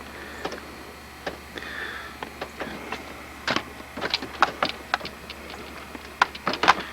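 Irregular sharp ticks and clicks that come more often after about three and a half seconds, over a faint steady low hum.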